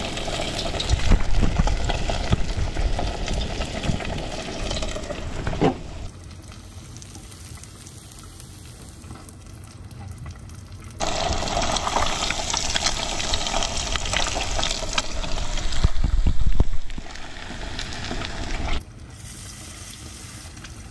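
Trout frying in hot oil, a steady sizzle. It cuts to a quieter background about six seconds in, comes back loud about eleven seconds in, and drops away again near the end.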